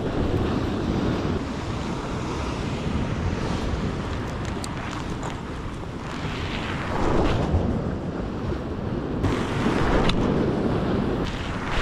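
Wind buffeting the microphone over sea swell washing against a rock ledge, with two louder surges of water in the second half.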